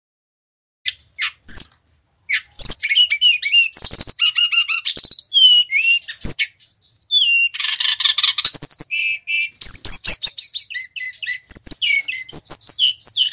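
Male brown-chested jungle flycatcher singing. A couple of isolated notes lead into a fast, continuous, varied song of whistled notes sliding up and down in pitch, with a few harsher, rasping notes mixed in.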